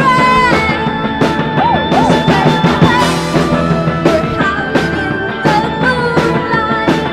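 Rock band playing: a woman sings while beating a small standing drum kit with a cymbal, over electric guitar, with steady drum hits throughout.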